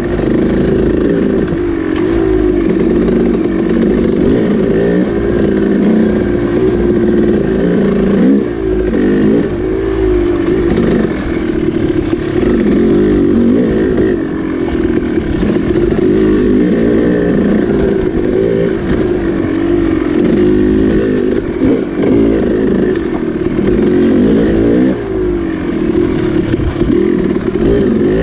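Dirt bike engine running under load, its revs rising and falling again and again as the rider works the throttle along a twisting trail.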